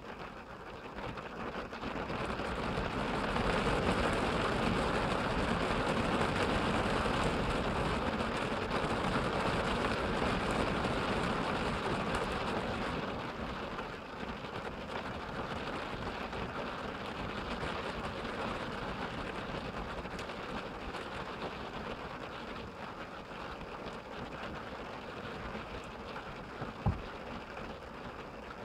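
Rain pelting the roof and windshield of a minivan, heard from inside the cabin. It grows heavier a couple of seconds in, stays heavy for about ten seconds, then eases to a steadier, lighter patter. There is a single short thump near the end.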